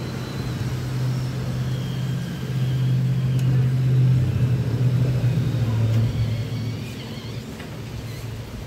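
Low engine rumble of a full-size motor vehicle going by, swelling about two to three seconds in and fading away near the end.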